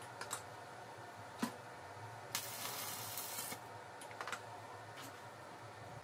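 Stick welding on steel rod: a few sharp clicks as the electrode is struck, then a short hissing crackle of the arc lasting about a second, midway. Further light metal clicks follow, over a steady low hum.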